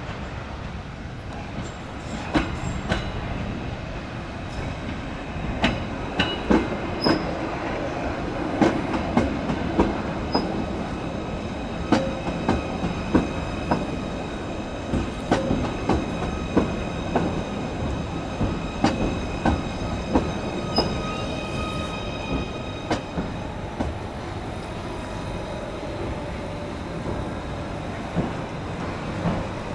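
Merseyrail Class 777 electric multiple unit running slowly into the platform, its wheels clicking irregularly over rail joints and points, with a steady high whine. The clicks thin out near the end as the train slows.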